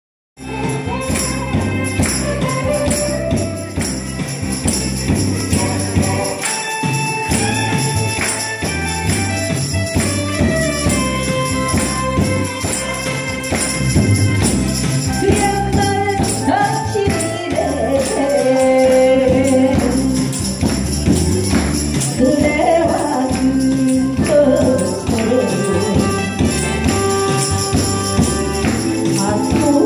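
A woman singing a Korean song into a microphone over a recorded backing track, played loud through a PA speaker.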